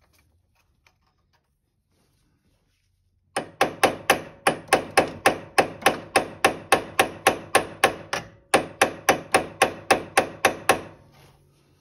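A hammer strikes steadily about three times a second, with a short break partway through, driving a tight pin into its hole on the ATV's front axle.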